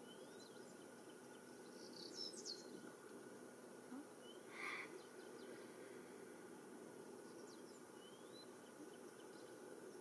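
Faint bird sounds in the distance: a few high chirps and short rising whistles about two seconds in and again near the end, and a brief buzzy note near the middle, over a steady low hum.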